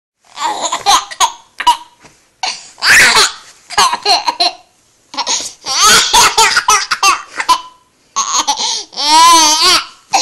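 A baby laughing in repeated bouts of giggles with short pauses between them. Near the end comes a long, high squeal that wavers in pitch.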